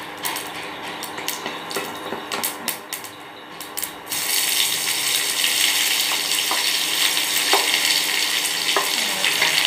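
Mustard seeds popping and crackling in hot oil in a kadai. About four seconds in, sliced onions are tipped in and the pan breaks into a much louder, steady sizzle.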